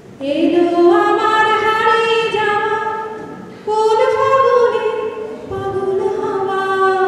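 A woman singing a slow Bengali song, holding long notes in two phrases, the second starting just past halfway.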